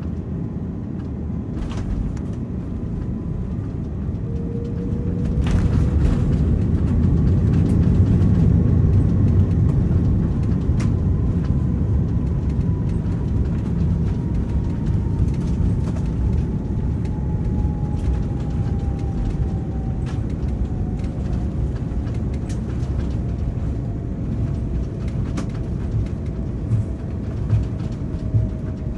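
Airbus A330 cabin noise while rolling on the ground after landing: a low rumble of wheels and engines that swells for several seconds early on and then settles. Over it an engine whine slowly falls in pitch as the Rolls-Royce Trent 700 engines wind down, with a few faint rattles and clicks.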